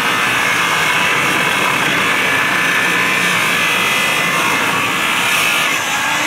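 Electric angle grinder running steadily under load, its disc grinding into a welded steel bracket on a steel tank lid.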